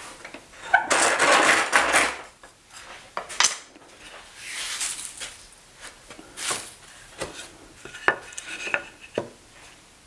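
Workbench handling noises: clinking and scraping as a metal bar clamp is loosened and taken off a pine board, then the board is lifted, turned over and set back on the wooden bench with a few short, sharp knocks near the end.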